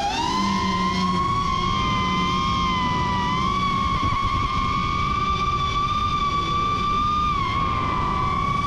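FPV racing quadcopter's motors and propellers whining at high throttle. One high pitch climbs quickly in the first half-second, holds nearly level, and starts to drop right at the end.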